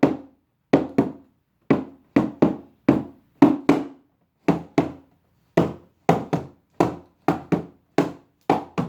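Cardboard box being struck by hand in a drummed rhythm, about twenty sharp, hollow knocks in an uneven pattern tapping out the beat of a song.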